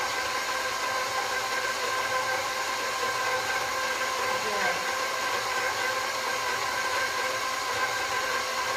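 Electric stand mixer with a beater blade running steadily while it mixes soft yeast dough for cinnamon rolls: an even motor whine over a hiss.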